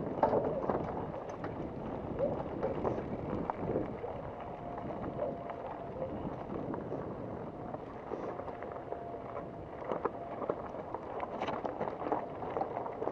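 Mountain bike rolling over rocky dirt singletrack: tyre noise with many small rattles and knocks from the bike over the rocks, and wind on the microphone. A faint steady hum runs through the middle few seconds.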